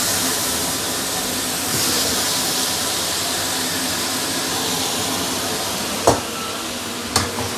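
Chicken pieces and curry paste sizzling in a hot stainless steel wok, a steady hiss, with two sharp knocks near the end.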